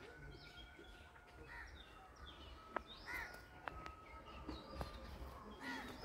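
Faint outdoor ambience of birds calling, with an arched call about three seconds in and three sharp clicks in the second half.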